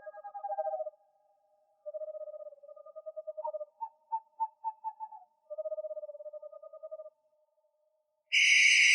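An owl giving a run of rapid trilled calls, each a quick train of notes lasting a second or so, one of them pitched higher. Near the end comes a loud, high-pitched call lasting about a second.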